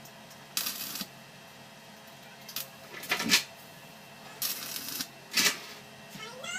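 Stick-welding arc crackling and hissing in about four short bursts, each under a second, as the electrode is struck against a steel water tank seam to lay tack welds.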